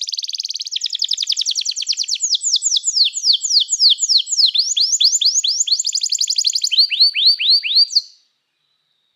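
Domestic canary singing: trills of rapidly repeated high sweeping notes that change speed several times, then stop suddenly about eight seconds in.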